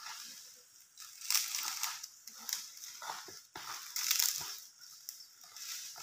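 Strong wind rustling coconut palm fronds in gusts, swelling and fading several times, with a couple of dull knocks a little past halfway.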